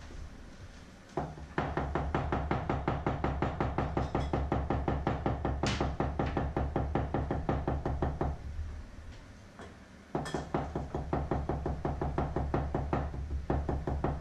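A large knife chopping rapidly on a thick round wooden chopping board, mincing shrimp: a fast, even run of knocks, several a second. The chopping pauses about eight and a half seconds in and starts again about a second and a half later.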